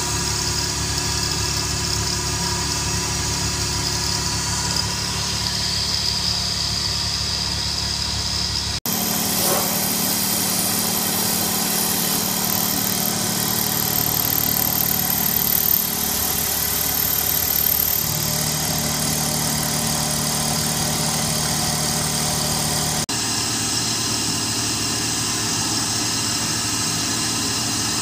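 CNC milling machine (a converted TM20LV, a G0704/BM20 clone) with its spindle running while a small end mill cuts billet aluminium: a steady machine whine with cutting noise. The sound changes abruptly about nine seconds in and again about two-thirds of the way through.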